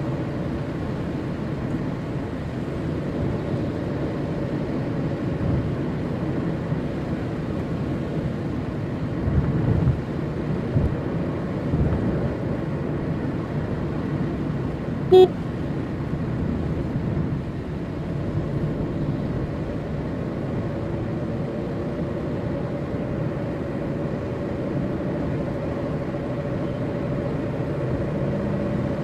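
Steady road and engine noise of a car driving on a wet road, heard from inside the cabin, with a few low bumps. About halfway through, a car horn gives one short beep.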